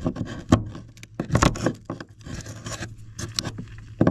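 Irregular knocks, clicks and scraping from hands and tools doing fitting work, the sharpest knocks near the start and about a second and a half in, over a steady low hum.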